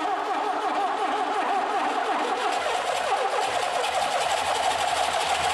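Starter motor cranking a freshly rebuilt Lada carbureted four-cylinder engine over before it catches, its whine wavering up and down in a fast steady rhythm and slowly getting louder.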